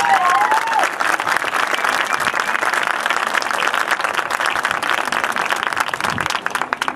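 Audience applauding and cheering in the stands after a marching band piece, with a couple of rising and falling whoops in the first second. The clapping thins out near the end.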